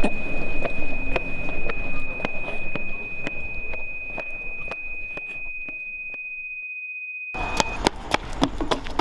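A steady, high-pitched sine tone held over a fading background with soft regular thuds about twice a second. The background drops to silence, then cuts back in abruptly about seven seconds in with running footsteps, and the tone stops just after.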